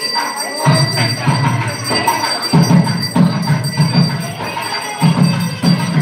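Temple bells ringing continuously, with a low drum beating a fast rhythm from about a second in.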